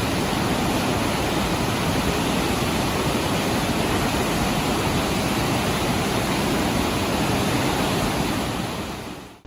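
Dawson Falls, a broad waterfall about 90 m wide and 20 m high, roaring steadily when heard up close, with a deep, even rush of falling water; it fades out over the last second.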